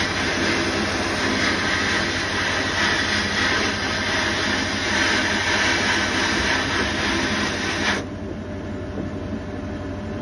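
Sandblast cabinet gun blasting abrasive with a loud, steady hiss of air and grit. About eight seconds in the blast stops and only a quieter, low steady hum remains.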